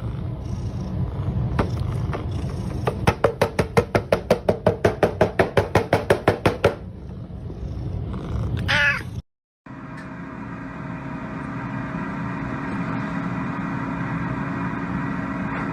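Domestic cat vocalising: a rapid string of short calls, about six a second, for several seconds, then a single gliding meow. After a brief cut a steady mechanical hum takes over.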